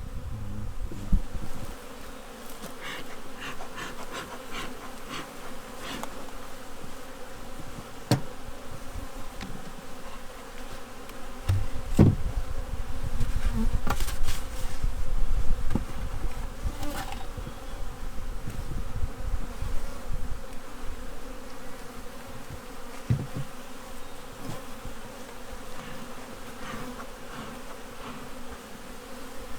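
Honey bees buzzing steadily around an open hive, with a few sharp knocks along the way.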